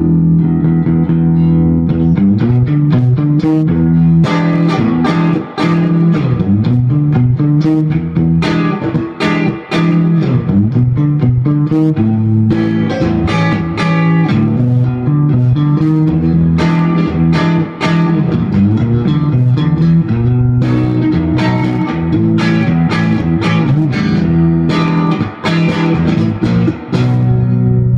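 Electric guitar (Fender Stratocaster) played loud through a Fender Vibroverb-clone tube amp with a JBL speaker. The amp is set on 5 to push the 6L6 output tubes toward the onset of breakup. It plays a run of picked notes with a heavy bass end, and the iPhone microphone is saturating.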